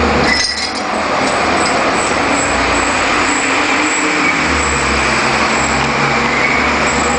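Wind chime tinkling with light, high ringing tones over a steady rumble of street traffic.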